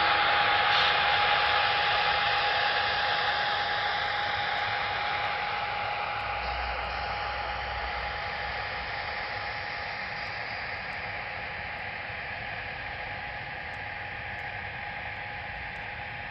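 Sound decoder in a Broadway Limited Imports N scale EMD F3 locomotive playing diesel engine sound through its tiny speaker: a steady, hissy drone with a constant tone in it, fading steadily as the locomotives move away.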